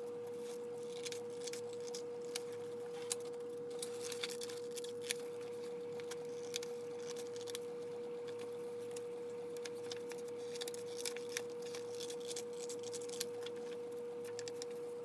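Scattered sharp snips of printed glossy-paper chip-bag labels being trimmed, a few every second, over a steady high-pitched tone.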